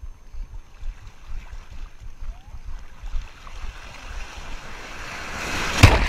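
Wind rumbling on the microphone over lapping sea water, then a wave surges up and breaks over the camera, a rising rush of churning surf that turns loud near the end.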